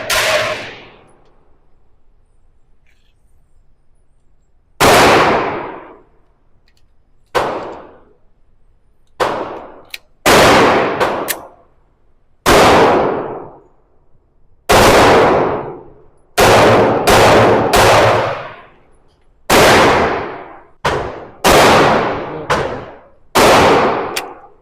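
Single shots from a 9mm semi-automatic pistol, about sixteen of them fired at uneven intervals, some in quick pairs and triples, each shot followed by an echoing tail.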